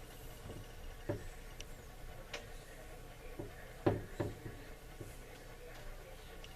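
Light knocks and clicks of AR-15 rifle parts being handled on a bench, scattered and irregular, with the loudest pair about four seconds in.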